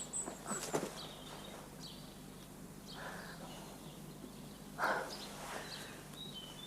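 Outdoor countryside ambience of small birds chirping: short, high calls scattered through. A few soft knocks come in the first second, and a louder brief noisy sound comes just before five seconds in.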